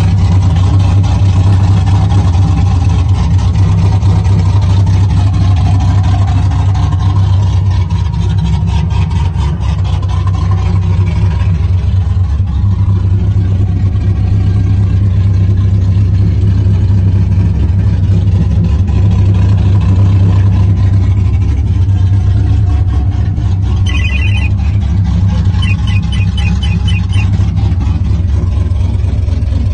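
Supercharged 6.0 L LS2 V8 of a 2005 Pontiac GTO idling steadily with an even, deep drone. About two thirds of the way through, a short high beep and then a quick run of high electronic chime beeps sound over the idle.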